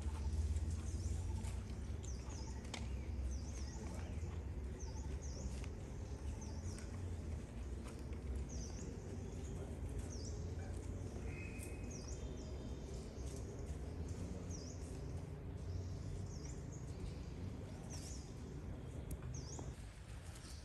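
Outdoor ambience: a steady low rumble with short, high chirps repeating about once a second.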